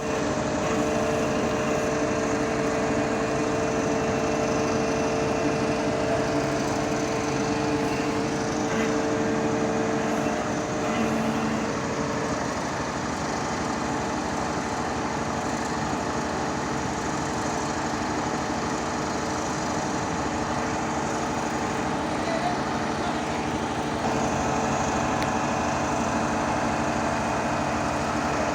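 Hydraulic static pile driver running steadily: engine and hydraulic power unit humming with several held whining tones. The sound shifts slightly about a third of the way through, as one tone drops out.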